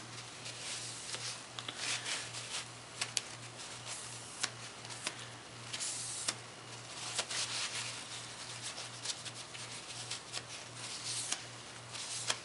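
Paper towel rustling and rubbing along a Cold Steel Kobun's oiled steel blade as the oil is wiped off, with scattered small clicks and taps.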